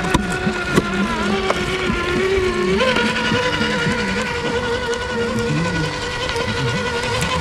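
Brushless electric motor and geared drivetrain of a TRX-4 RC crawler whining under throttle as it climbs, the pitch stepping up a little about three seconds in and then holding steady. A few sharp clicks come in the first second and a half.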